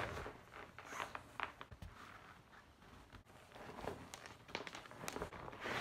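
Quiet rustling, scuffs and scattered clicks of boots being handled and their laces pulled tight.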